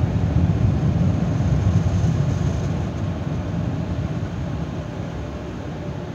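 Car wash air-dryer blowers running, a steady rumbling rush heard from inside the car's cabin, gradually getting quieter from about three seconds in.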